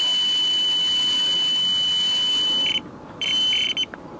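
Electronic carp bite alarm sounding one continuous high tone as line is pulled off fast by a running carp, then breaking into a few short beeps after about two and a half seconds.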